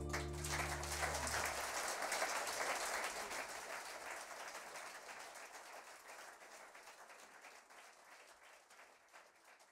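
An acoustic guitar tune's final chord rings out for about a second and a half as audience applause rises. The applause then fades away gradually.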